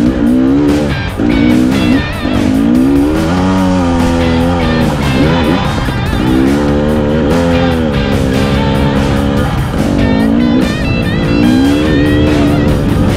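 Rock music with electric guitar over a dirt bike engine revving up and falling back over and over, its pitch climbing and dropping every second or two.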